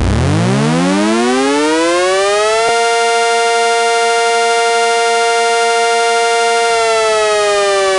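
Outdoor tornado warning siren winding up from silence, its pitch rising for about three seconds, holding a steady loud wail, then starting to wind down slowly near the end.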